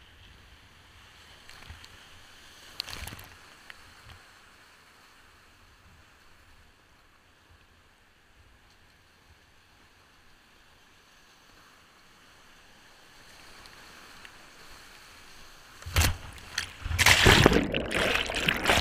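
Whitewater rapids rushing, faint and steady, under a paddling kayak, with a brief splash about three seconds in. Near the end, loud crashing and gurgling as the kayak hits a big wave and water washes over the camera, taking it underwater.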